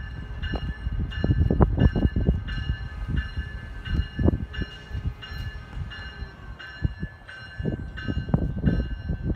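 A bell rings steadily, about twice a second, over the rumble and knocks of a passing passenger train. The bell stops near the end.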